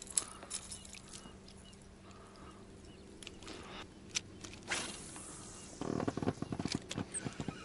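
Spinning rod and reel being handled and worked: scattered small clicks and knocks, a short hiss near the middle, then a quick run of clicks about six seconds in.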